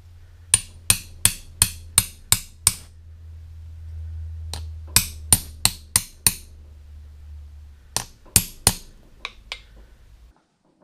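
Hammer tapping a punch against a South Bend lathe apron during reassembly: quick, sharp metal-on-metal taps in three runs of about seven, six and five strikes, roughly three a second, with short pauses between the runs.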